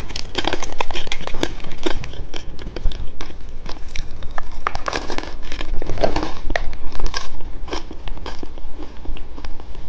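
Close-miked eating of candy dipped in popping candy: a dense, irregular run of sharp crackles and pops, with wet mouth and crunching sounds.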